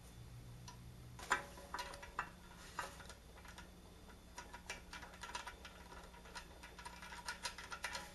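Scattered small clicks and taps of small hardware being handled, a screw being readied with thread-locker, the sharpest about a second in. A faint low hum stops about a second in.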